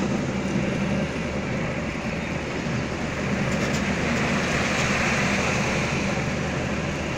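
Steady engine and road noise heard inside a moving car's cabin. A louder rush swells about four to five seconds in as a lorry passes close alongside.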